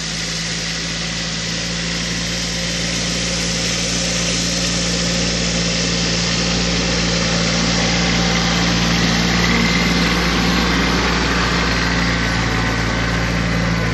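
Kubota Aste A-195 compact tractor's diesel engine running at a steady speed under load while pulling a plough through the soil. It grows louder as the tractor passes close by.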